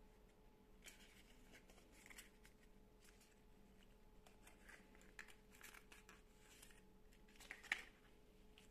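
Faint rustling and light ticks of paper stickers and a small cardboard card being handled, with one sharper tick near the end.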